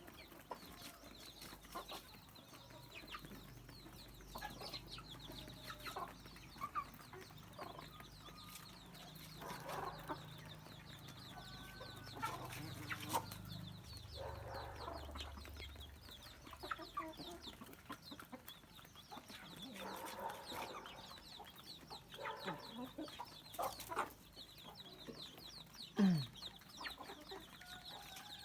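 A flock of chickens clucking, with scattered calls and many short, high chirps throughout. A faint low hum runs through the first half, and a brief, louder low sound falls in pitch near the end.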